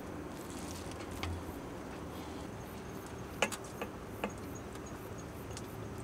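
Quiet background with a few light clicks and taps of metal cookware and containers, most of them about three and a half to four seconds in.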